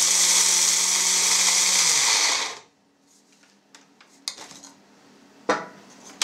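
Electric blade grinder of a kitchen combine running steadily as it grinds peeled cocoa beans, then winding down with a falling hum about two seconds in. A few light clicks follow, then a sharp clack near the end as the grinder cup is handled.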